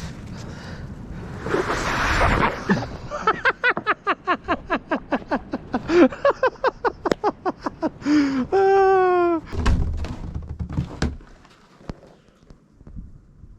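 Animal calls: a fast run of short pitched calls, about five a second, ending in one long call that falls slightly.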